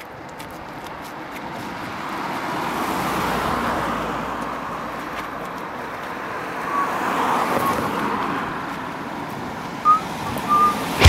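A car passing on a road: tyre and engine noise swells to a peak, fades, then swells again as another pass builds. A few short high chirps come near the end.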